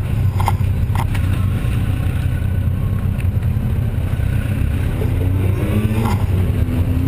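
Touring motorcycle engine running at low speed while the bike is ridden slowly, a steady low hum, with two light clicks about a second in.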